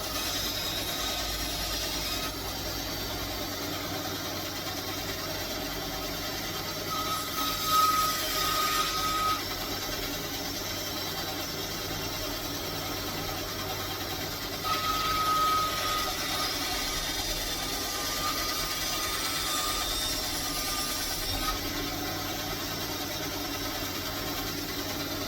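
Power tool running steadily, growing louder twice for a second or two.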